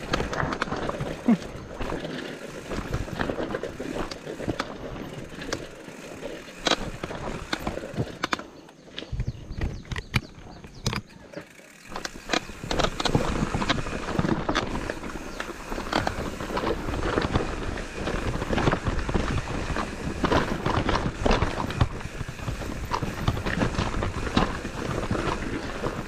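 Mountain bike rattling and clicking over a rough, rocky trail, with a continuous irregular clatter that drops off for a few seconds about eight seconds in and then comes back.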